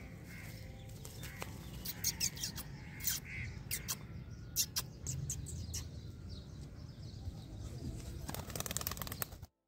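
Birds chirping in short, sharp notes over a steady low rumble. A quick flurry of rustling comes near the end, then the sound cuts off suddenly.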